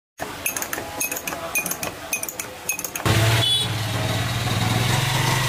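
About a dozen light clinks of glass and metal, each with a short high ring. About three seconds in, a steady, louder engine hum takes over and keeps running.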